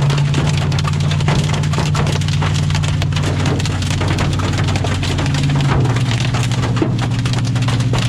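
Hail pelting the roof and hood of a moving vehicle, heard from inside the cab as a dense, constant clatter of impacts, with a steady low drone underneath.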